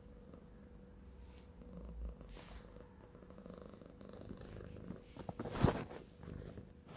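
Domestic cat purring softly, a faint low rumble. A short bump and rustle, the loudest sound, comes about five and a half seconds in.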